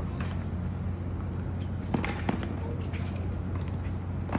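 Tennis ball being struck by rackets and bouncing on a hard court during a rally: a few sharp pops, two close together about two seconds in and another near the end, over a steady low hum.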